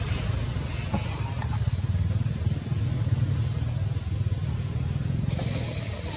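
Low, steady engine-like rumble, with a high, rapid chirping repeated in runs of about a second over it.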